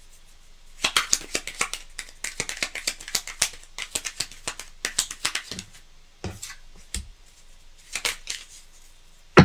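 Small tarot deck being shuffled by hand: a quick run of crisp card clicks for a few seconds, then a few single taps as a drawn card is laid down.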